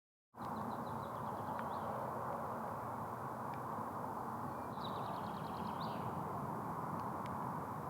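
Steady rushing wind noise by a lake, with a small songbird twice singing a short, rapid series of high notes that ends in a quick flourish.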